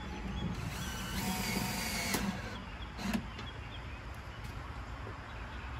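Cordless DeWalt drill briefly running as it drives a roofing screw, followed by a couple of sharp clicks, over a steady low rumble.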